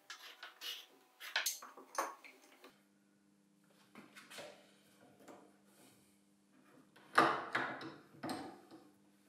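Light knocks and clicks of a plywood block being set on a bench leg, then a steel bar clamp handled and tightened, with two louder metallic rasps and clinks about seven to eight seconds in.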